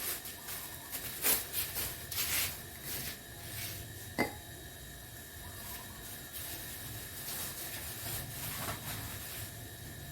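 Objects being handled: several short rustling noises in the first few seconds and a sharp click about four seconds in, over a faint steady hum.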